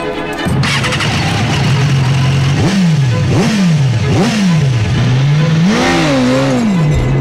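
Sport bike engine idling, then revved in neutral with three or four quick throttle blips that rise and fall in pitch, and a longer rev held briefly near the end.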